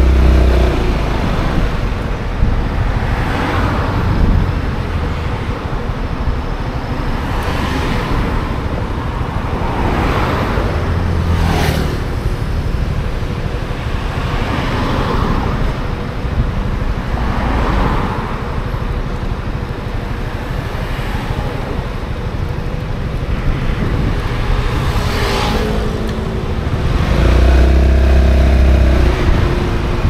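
Wind and road noise on the camera microphone while riding a Honda Forza 350 scooter in traffic, with several vehicles swishing past, one close pass about a third of the way in. A deeper engine drone swells briefly at the start and again near the end.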